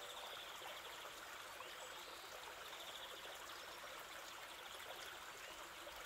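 Faint, steady rush of running water, like a trickling stream.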